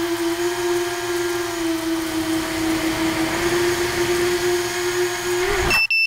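Tricopter's brushless motors and three-blade propellers whining at a steady pitch in flight, heard from the onboard camera. The motors cut off suddenly near the end as the craft comes down in the grass, with a brief high beep as they stop.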